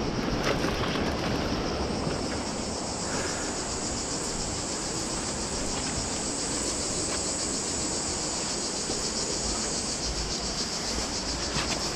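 A steady, high, pulsing insect buzz, with a low rumble of wind and movement on the microphone underneath.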